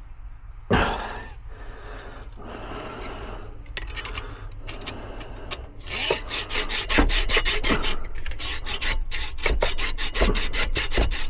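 Hand saw blade cutting into a metal key held in a vise, with a knock about a second in, then fast back-and-forth rasping strokes that grow louder about halfway through. The blade is twisted, which makes the cut awkward.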